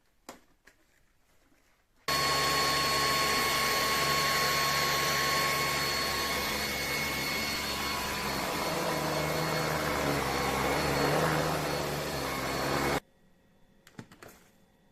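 Cordless stick vacuum cleaner switched on about two seconds in: its motor runs with a loud steady rush of air and a high whine for about eleven seconds, then cuts off suddenly. A few light clicks come before it starts and after it stops.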